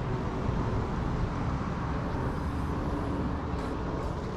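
Street traffic ambience: a steady low rumble of cars on the road.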